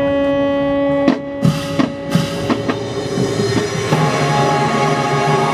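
Marching band holding a loud brass chord that cuts off about a second in, followed by a few separate drum hits. Near the end a fuller mass of sound sets in as crowd cheering begins.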